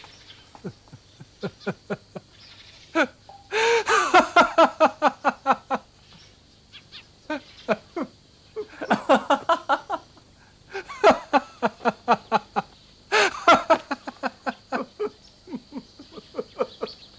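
Men laughing heartily in four or five bouts of quick, repeated ha-ha-ha pulses, each bout falling away, with short pauses between them.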